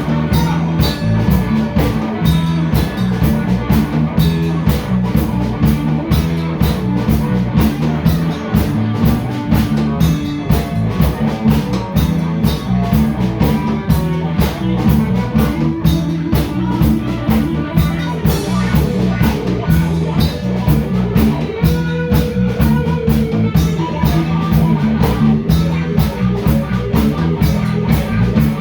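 Live band playing rock music without singing: a drum kit keeps a steady, fast beat under guitar and bass.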